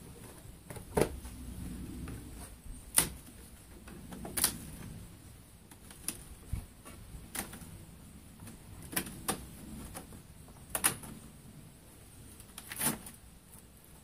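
Irregular sharp clicks and knocks, about a dozen, of a metal hive tool prying at and tapping the frames and boxes of an Apimaye plastic Langstroth beehive.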